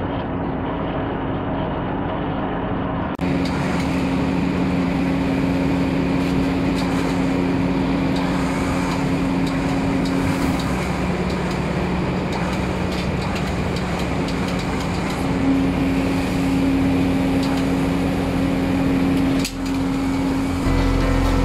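Steady hum of shipboard machinery with two steady low tones, one of which drops out for a few seconds midway and then returns. It gets louder abruptly about three seconds in.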